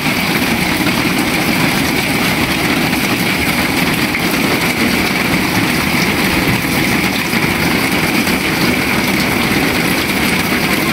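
Rain falling steadily onto standing floodwater, an even, unbroken hiss.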